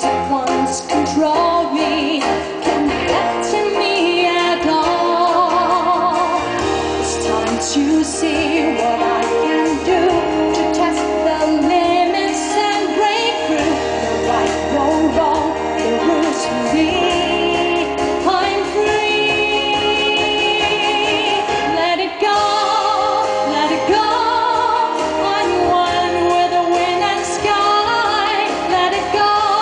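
A woman singing live into a microphone with vibrato, amplified through PA speakers over instrumental accompaniment.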